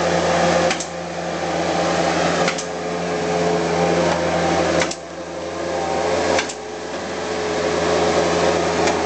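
Bobcat 763 skid-steer loader running under load as it digs into dirt and rock. The engine's loudness builds and drops back about every two seconds, with a sharp knock at each drop.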